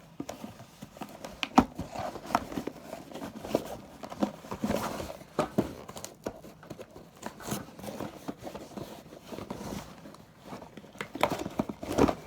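A mailed package being cut open with scissors and unwrapped: irregular snips, scrapes and clicks with rustling of tape and packaging.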